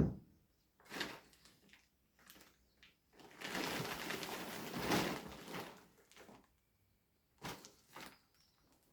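Unboxing handling noises: a few short knocks and rustles, then one longer rustle lasting about three seconds from about three seconds in, typical of plastic packaging being pulled off new mats.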